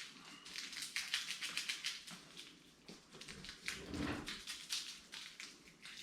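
Light, rapid clicking and rustling of small objects being handled, with a dull bump about four seconds in.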